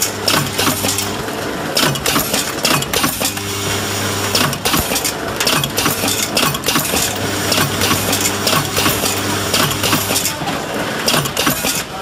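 A horizontal flow wrapping machine running, with dense rapid mechanical clatter and a low motor hum that drops out and returns several times.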